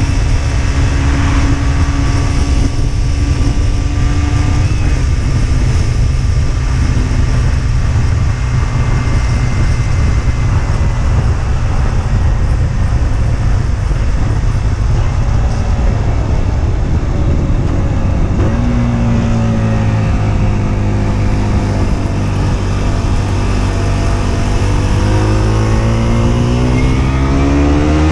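Husqvarna Svartpilen 125's single-cylinder engine running under way, with heavy wind rush on the microphone. The engine note holds steady, drops about two-thirds of the way through, then climbs steadily as the bike accelerates near the end.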